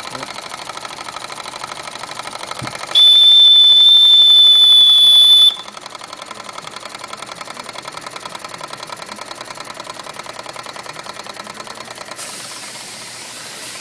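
Old model stationary steam engine running with a fast, even chuffing. About three seconds in, its steam whistle blows one steady high note for about two and a half seconds. Near the end a hiss of escaping steam starts.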